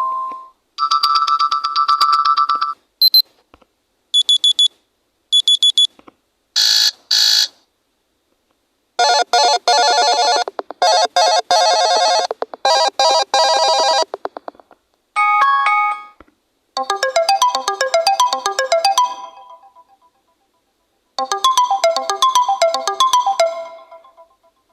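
Android notification and alarm tones on an Aidata Elde 10.1 tablet, previewed one after another: about nine short electronic chimes, beeps and jingles, each stopping abruptly with a brief silence before the next. Near the middle one tone repeats rapidly for about five seconds.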